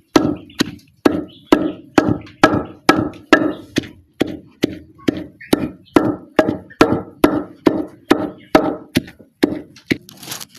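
Pestle pounding fresh leaves in a wooden mortar, with steady strikes about two a second, each a sharp knock with a short dull ring.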